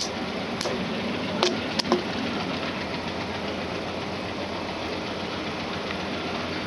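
WDM-3D diesel-electric locomotive's ALCO 16-cylinder engine chugging steadily as it hauls a passenger train, with a couple of short sharp sounds about a second and a half in.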